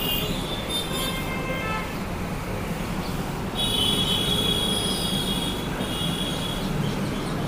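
Steady low background rumble. Over it come a few high tones that fall away in the first couple of seconds, then a long, high, steady tone from about three and a half seconds to nearly seven seconds, broken briefly near six seconds.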